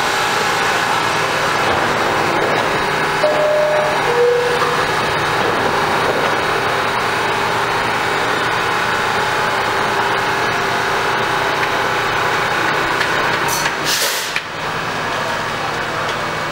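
R160 subway train standing in the station with its doors open: a steady hum from its equipment over the platform's noise. About three and four seconds in come two short tones, the second lower. Near the end there is a brief hiss.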